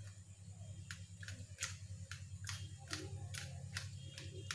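Steel spoon scraping and tapping against a steel mesh strainer, about two to three strokes a second, as thick ground gravy paste is pushed through the mesh. A steady low hum runs underneath.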